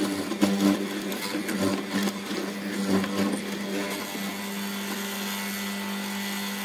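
Benchtop hollow-chisel mortiser running with a steady motor hum, its square chisel and auger plunging into a wooden workpiece with irregular cutting noise for about the first four seconds. After that the motor runs on without cutting.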